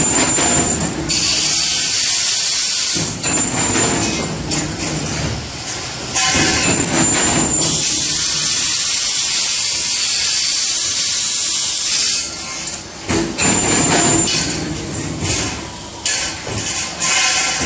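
Roller pipe-bending machine working stainless steel tubing into U-bends: loud mechanical noise with hissing stretches of a few seconds that come and go.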